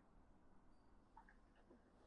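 Near silence: room tone in a pause between mechanical-keyboard keystrokes, with a faint soft tick or two just past the middle.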